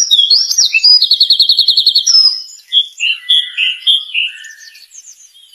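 A songbird singing a varied song: rising whistles and sweeps, then a fast trill of about a dozen notes a second, followed by softer short calls that fade toward the end.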